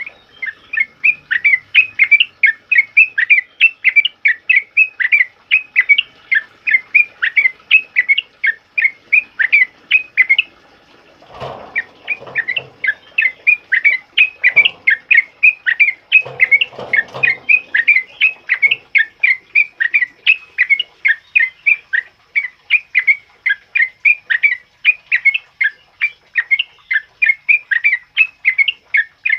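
Sooty-headed bulbul singing a loud, rapid run of short chirping notes at about four a second, with a brief pause partway through. This is the continuous 'ropel' song used as a tutoring track for caged birds. A few low rustling sounds come just after the pause.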